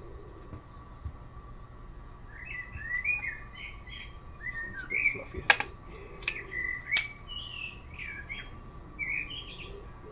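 A songbird singing a varied run of short chirping phrases. In the middle come three sharp clicks from the .177 air pistol being cocked and loaded with a dart.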